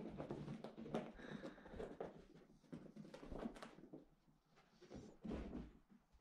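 Two Bengal kittens scampering and pouncing on carpet: faint, irregular soft thumps and scuffles of their paws.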